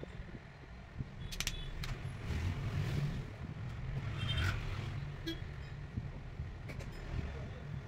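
Sharp plastic clicks and rustling as the back cover of a Redmi 8 phone is pried loose from its frame and lifted off, over a steady low rumble.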